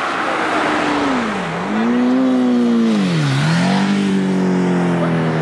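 Motorcycle engine revving. Its pitch dips and climbs twice, then falls off slowly.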